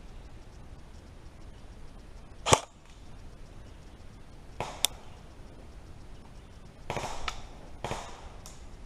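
Airsoft guns firing: one loud sharp crack about two and a half seconds in and a lighter double snap around five seconds in. Two short rough scuffing sounds follow near the end.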